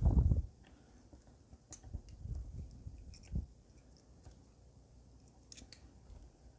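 Needle-nose pliers gripping and bending thin 1.25 mm wire to fold over a foot: scattered small clicks and ticks of metal on metal. A brief low rumble of handling at the very start is the loudest part.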